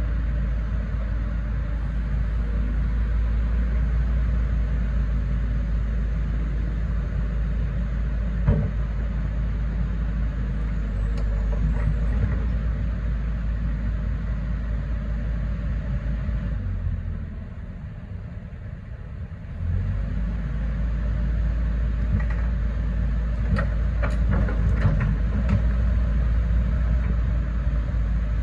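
Hyundai HX140LC 14-tonne excavator's diesel engine running with a steady low rumble as it works the boom, arm and bucket hydraulics, with a single knock about eight seconds in. A little past halfway the engine drops back and quietens for two or three seconds, then picks up again, and a few light knocks come near the end.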